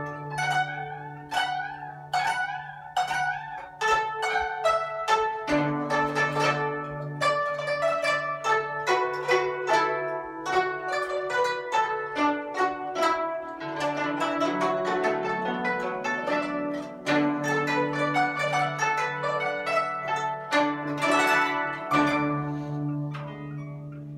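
Instrumental music: a plucked string melody, zither-like, with wavering pitch bends on some notes over held low notes, dying away near the end.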